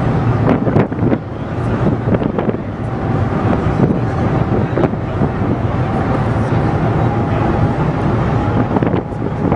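Wind buffeting the microphone over a steady low rumble, with a few sharp knocks in the first second and again around four and five seconds in.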